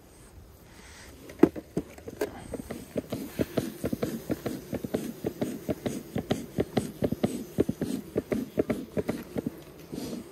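Hive tool working the wooden frames of an open beehive: a rapid, irregular run of short knocks and scrapes, about four or five a second, starting about a second in.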